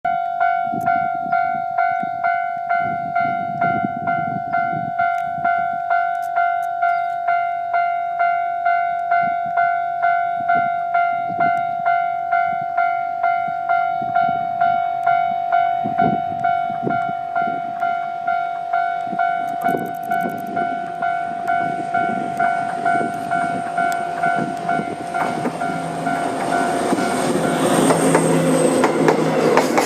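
Japanese railway level-crossing warning bell ringing steadily, about two and a half dings a second. Near the end, the rumble of a DD200 diesel locomotive and its freight train rises over the bell as the train reaches the crossing.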